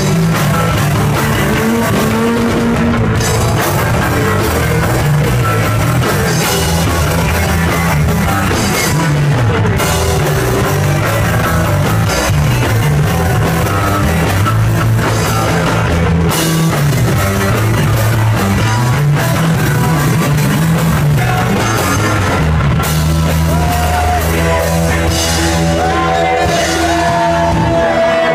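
Live rock band playing loud, with electric guitar and drum kit, heard close to the guitarist; sustained guitar notes ring out near the end.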